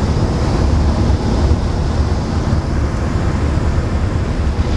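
Cessna 172's piston engine and propeller droning steadily in flight, heard from inside the cabin as a loud, even low rumble.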